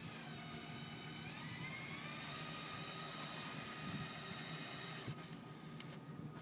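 Steady engine-like whir with faint whining tones, one of them rising in pitch between one and two seconds in.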